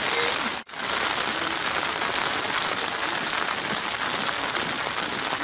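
Heavy rain pouring down on wet pavement: a steady, dense hiss that cuts out for an instant about half a second in.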